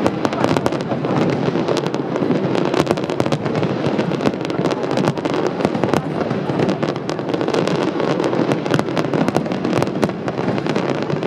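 Fireworks going off in a dense, unbroken barrage: many sharp bangs and crackles close together, with no let-up.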